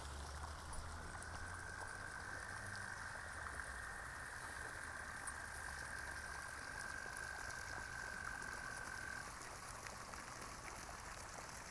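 Quiet pond ambience: water trickling steadily from a small pump-fed waterfall. A single high, steady trill runs for about eight seconds and stops near the end.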